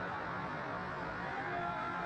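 Ice rink ambience during play: a steady wash of arena crowd noise over a low hum, with faint high-pitched shouts from the stands starting near the end.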